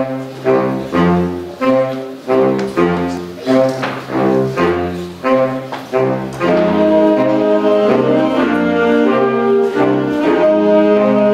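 Concert wind band of saxophones, clarinets and brass playing loud music. It opens with short accented chords in a steady pulse, each one dying away, and about six and a half seconds in it moves into sustained, continuous full-band playing.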